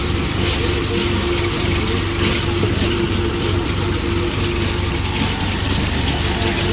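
Tractor-drawn potato harvesting machine at work: a steady engine drone with a constant whine running under it.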